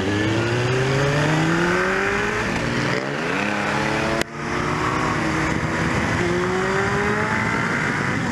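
Motorcycle engine accelerating hard through the gears. Its pitch climbs in each gear and falls at the shifts, about three seconds and about seven seconds in.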